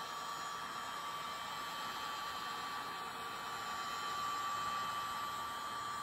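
Wagner heat gun running: a steady blowing hiss with a steady high whine, getting slightly louder about four seconds in.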